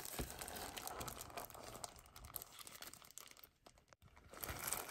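Disposable plastic glove crinkling and rustling as a gloved hand rummages among salted crabs in a plastic jar of brine, with a short lull a little before the end.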